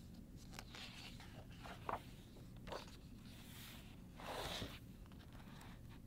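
Faint paper rustling and brushing as the pages of a picture book are turned and the book is closed and laid down, in several short sweeps, the longest about two-thirds of the way through.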